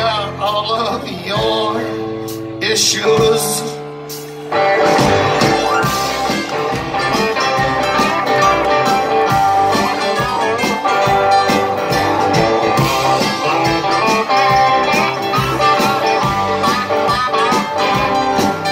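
Live electric band playing a blues-rock song. A quieter passage of held notes runs for about four and a half seconds, then the drums and the full band come in and play on steadily.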